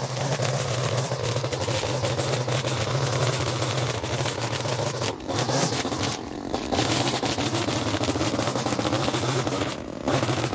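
Small gasoline engine of lawn-care equipment running steadily, with a constant rushing noise over it and a few brief dips in level about halfway through and near the end.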